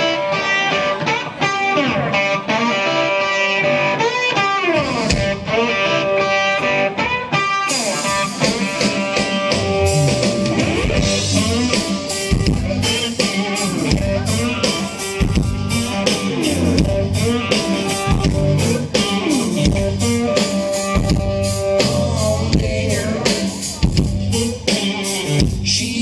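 Live band playing the instrumental intro of a song: electric guitars play held notes with bending pitch, then a drum kit comes in about eight seconds in and the full band plays a steady beat.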